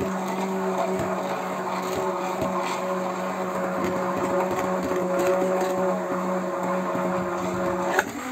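A handheld immersion blender runs steadily in a glass jar with a constant motor whine, blending a thickening mix of milk, sugar, cocoa and vegetable oil into chocolate spread. Near the end there is a click and the motor's pitch drops.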